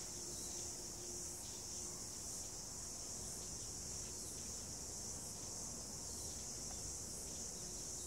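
A steady high-pitched chorus of insects chirring.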